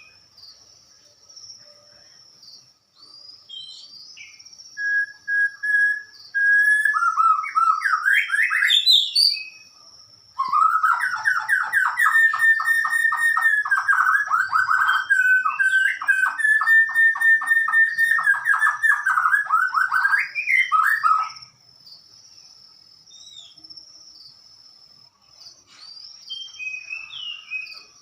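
White-rumped shama (murai batu) singing: a few clear whistled notes and quick rising phrases, then a loud, rapid run of repeated notes lasting about ten seconds, with softer calls before and after. A steady high-pitched buzz runs underneath.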